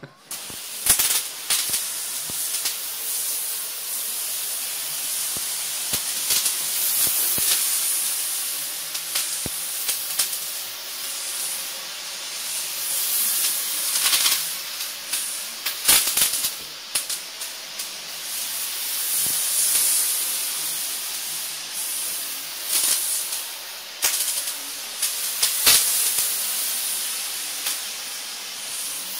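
RS500 sprayer's gun hissing as it sprays Magnum R-125 filler onto fibre gypsum board, swelling and easing as the spray comes and goes, with scattered sharp clicks.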